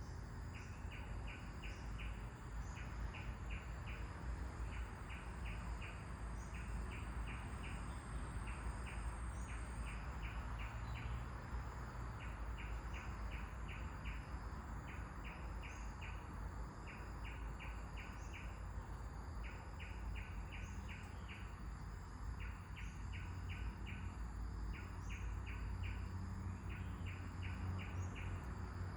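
Outdoor nature ambience: birds calling, with quick chirps repeated in short runs about once a second and higher short calls every second or two, over a steady wind noise with low rumble.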